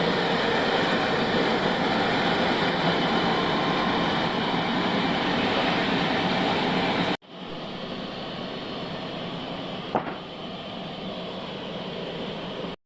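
Old bandsaw sawmill running with loud, steady mechanical noise. About seven seconds in the sound cuts off abruptly and comes back as a quieter, steady machine noise, with a single short knock about ten seconds in.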